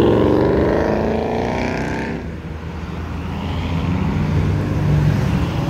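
A Ford Mustang's engine accelerating past with its note rising in pitch, fading about two seconds in. A second car's engine then comes up with a steady low note that grows louder toward the end.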